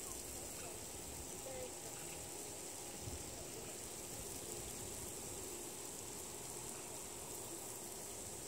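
Quiet outdoor ambience: a steady high-pitched hiss with a low rumble of wind on the microphone and a few faint, short chirps scattered through.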